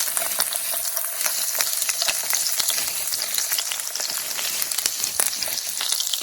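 Whole brook trout sizzling in hot melted butter in a frying pan: a steady high hiss full of small crackles and pops.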